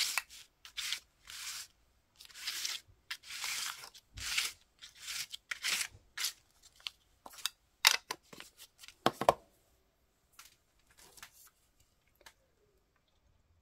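Ink pad rubbed in quick repeated swipes over crumpled brown paper-bag paper, a run of short scratchy paper-rubbing strokes, sped up. A few sharp taps come about two-thirds through, and the strokes thin out near the end.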